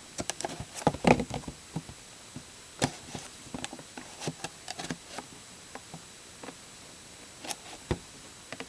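A cardboard blaster box of trading cards being worked open by hand: irregular crackling, tearing and clicking from its wrapping and cardboard, heaviest about a second in.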